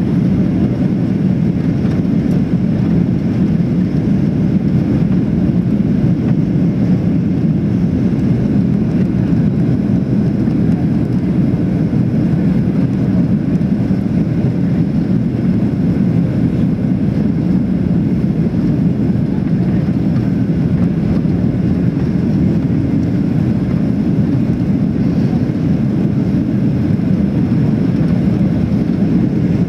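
Steady cabin noise of a Boeing 737-700 in flight on approach, with its flaps extended: the low, even rush of engines and airflow heard from a window seat over the wing.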